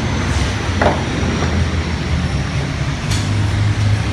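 Steady low machine hum in a workshop, with a couple of brief light knocks, about a second in and again near three seconds.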